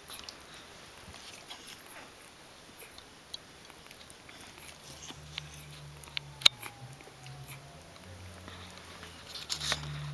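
Newborn Miniature Bull Terrier puppies suckling at their mother: small wet smacking and clicking sounds, with one sharper click about six and a half seconds in. A low steady hum joins about halfway through.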